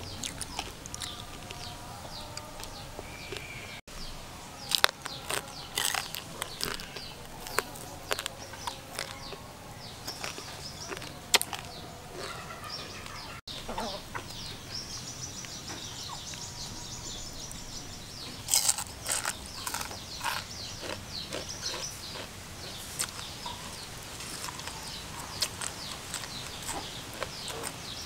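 Chickens clucking, with one crowing near the end, over scattered sharp crunches and clicks from eating crispy fried frogs.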